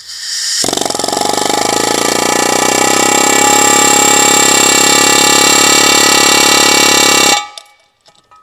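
Pneumatic air hammer (air jack) running loud and fast, driving a new valve guide liner into a BMW S50 cylinder head. A short hiss of air comes first, then the rapid hammering starts about half a second in, runs steadily, and cuts off suddenly about a second before the end.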